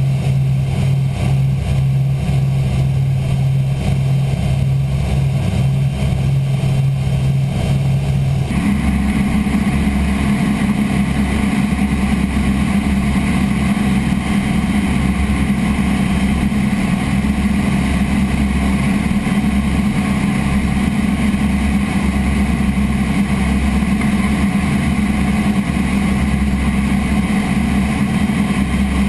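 The B-29 Superfortress's four Wright R-3350 eighteen-cylinder radial engines and propellers droning steadily in cruise flight, heard inside the glazed nose. The tone of the drone shifts abruptly about eight seconds in.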